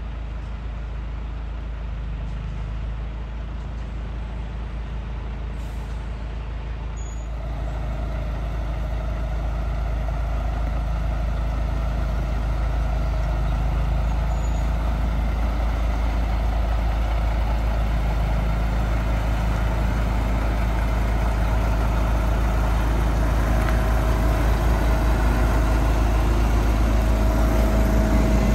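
Road vehicle running at speed: a steady low rumble with road noise that grows louder from about seven seconds in, and a steady hum coming in near the end.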